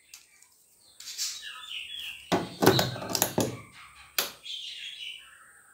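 Handling clicks and knocks as an assembled LED bulb with its plastic diffuser dome is fitted into a plastic lamp holder on a wooden board: a few sharp taps starting about a second in, bunched together near the middle.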